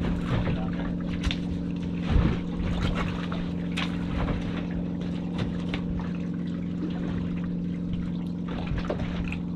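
Boat's outboard motors idling with a steady low hum, over water splashing and sloshing against the hull. Scattered light clicks and knocks, one louder thump about two seconds in.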